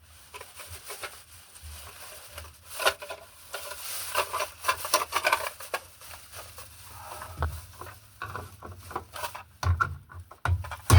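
Rustling and scraping of someone shifting about and handling things in an attic, with many scattered light clicks and a few dull thumps near the end.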